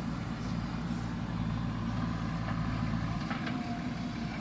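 Heavy diesel engine running steadily at a constant speed, with a faint thin whine joining in near the end.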